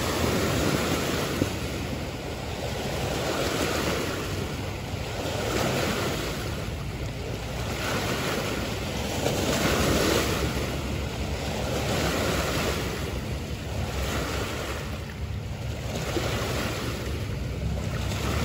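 Small river waves breaking and washing against a rocky bank, swelling and easing every couple of seconds, with wind rumbling on the microphone.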